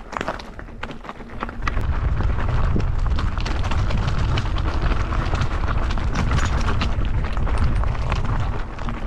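Mountain bike riding over rough trail, with constant clicks and rattles of the bike and tyres over stones. About two seconds in, heavy wind rumble on the microphone starts and stays, as the bike picks up speed.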